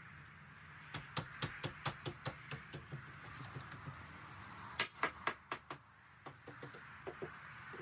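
Quick runs of sharp knocks on a timber frame post as it is fitted into place, about four or five a second. The knocks start about a second in, come loudest in a short burst around the middle, and turn fainter near the end.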